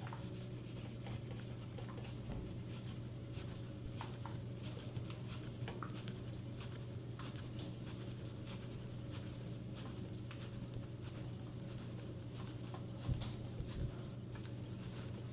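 Light scratchy rubbing with small clicks, a cloth wiping down a bicycle, over a steady low hum. A few soft knocks come near the end.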